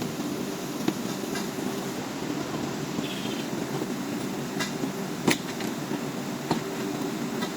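A steady low mechanical hum with a few sharp knocks, the loudest about five seconds in.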